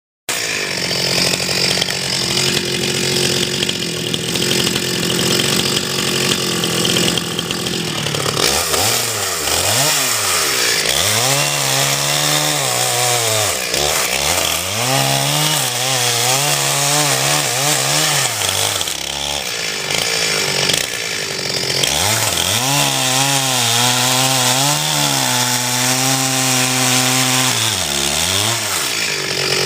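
Motor-driven screw-cone log splitter running, steady for the first eight seconds or so. After that its pitch sags and recovers again and again, the motor slowing under load as the cone bores into the logs and bursts them apart.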